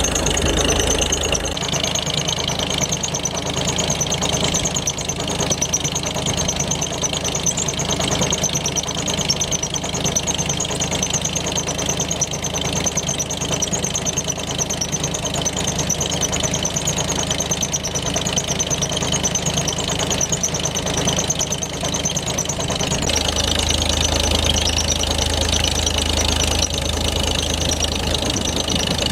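Farmall H tractor's four-cylinder engine running steadily under load, turning a long flat drive belt to a dike pump. Its low rumble is heavier near the start and again in the last several seconds.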